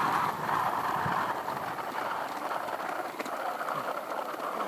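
Steady rushing ride noise of a 20-inch BMX bike rolling along, easing off a little in the second half.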